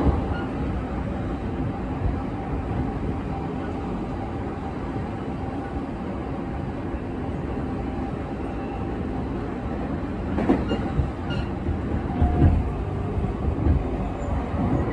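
Electric commuter train running, heard from inside the passenger car: a steady rumble of wheels and running gear on the track. A few louder knocks come in the last few seconds.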